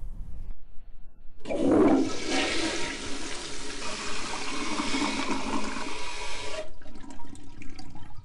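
Toilet flushing: a rush of water that starts about a second and a half in, runs for about five seconds and cuts off abruptly.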